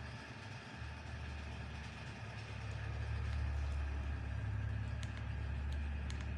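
A low, steady rumble from an unseen source, swelling a little partway through, with a few faint clicks of the Nokia 3110c's keypad buttons being pressed near the end.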